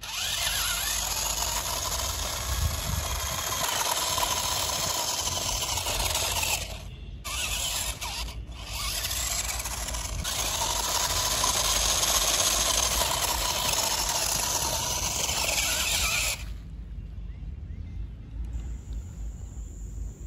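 Toy RC rock crawler's electric motor and gears whirring as it drives over dirt and grass, cutting out briefly twice near the middle and stopping near the end.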